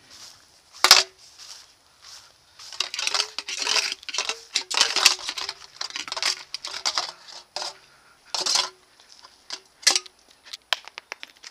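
Footsteps crunching through dry leaves and ground litter, about two a second, with a sharp click about a second in.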